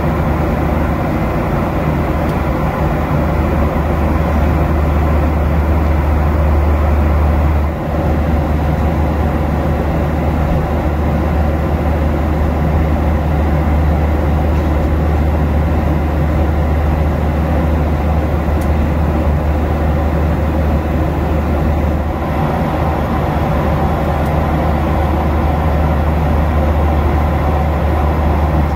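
Steady cabin drone of a Boeing 737-800 in cruise: a low hum from the engines and rushing airflow, with a brief dip about eight seconds in.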